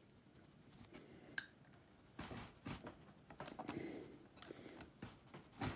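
Stanley knife blade scoring through a fishing rod's cork handle to strip it from the carbon blank: faint, irregular scraping strokes with a few small clicks, and one sharp click near the end.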